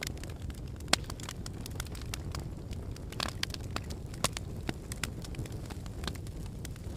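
Wood fire crackling in a fireplace: irregular sharp pops and snaps over a steady low rumble, with one sharper pop about a second in.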